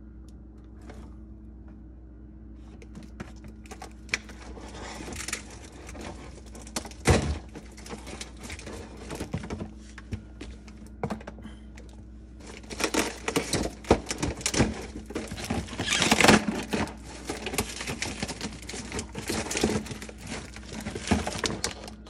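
Crinkling and clicking of a plastic-packaged drain pipe kit being handled, with scattered knocks of plastic parts, much busier in the second half. A steady low hum runs underneath.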